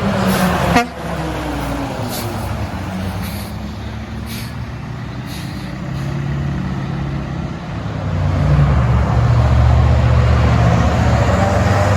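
Heavy diesel trucks passing on a highway. A loud sound cuts off sharply just under a second in, and from about eight seconds in a truck's low diesel engine note swells and stays loud.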